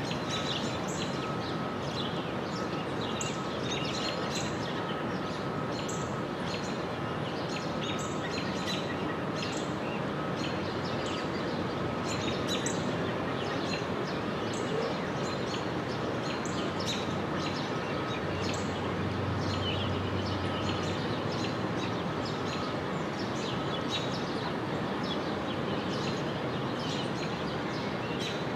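Small songbirds chirping, many short high calls scattered throughout, over a steady hiss of outdoor background noise.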